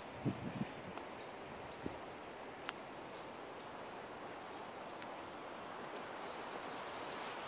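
Faint, steady outdoor forest ambience with a light hiss. A few soft thumps of running footfalls sound in the first second. A small bird gives short high chirps twice.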